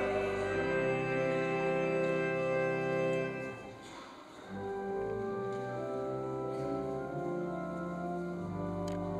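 Church pipe organ playing slow, sustained chords, with a brief softer lull and a change of chord about four seconds in.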